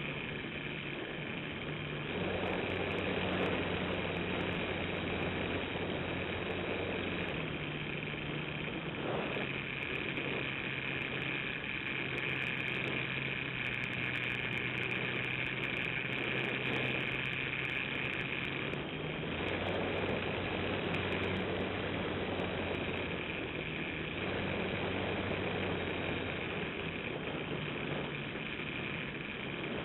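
Radio-controlled model airplane's motor and propeller running in flight, heard from a camera under the fuselage with a steady rush of air. The motor's pitch steps up and down several times, about two seconds in and again around eight, nine, nineteen and twenty-four seconds in.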